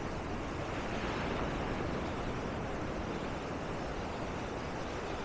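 Surf washing onto a sandy beach, a steady rush of waves that swells slightly about a second in.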